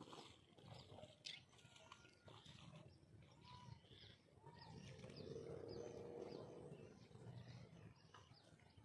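Faint animal calls: scattered short chirps, with two arching lower calls near the middle.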